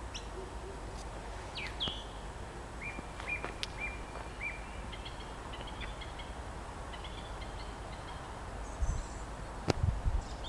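Wild birds chirping and calling in short notes and quick sweeps over a steady low rumble, with a few knocks and a sharp click near the end.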